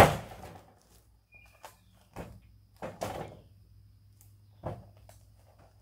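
Sawn boards being handled on a portable sawmill's bed: a loud wooden knock at the start, then several more knocks and clatters about two, three and nearly five seconds in.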